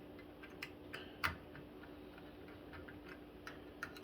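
A few faint, separate clicks of a screwdriver and the CPU cooler's metal mounting screws as they are worked against the bracket, the screws not yet engaging. The clearest click comes about a second and a quarter in, over a faint steady hum.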